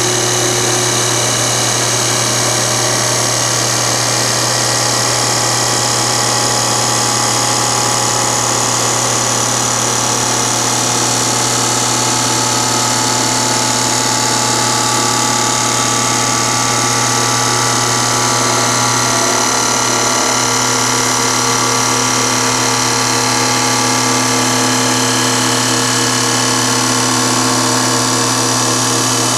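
CNC wood lathe (Auto-Motion Motioncat) running as its cutter turns a wooden baseball bat: a steady mechanical hum with the continuous hiss of the tool cutting wood, unbroken throughout.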